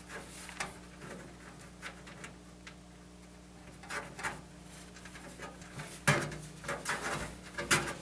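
Small metallic clicks and light knocks, scattered at first and sharper from about six seconds in: brass motherboard standoffs being handled and hand-threaded into the steel motherboard tray of a PC case.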